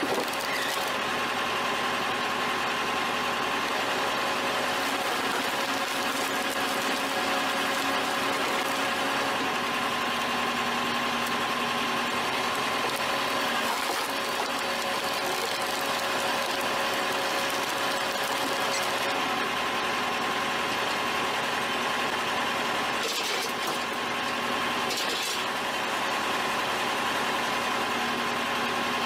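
Vehicle-driven hydraulic log splitter running steadily with a constant mechanical whine while a log is pushed through its multi-way splitting wedge, with a few brief clicks and cracks of wood.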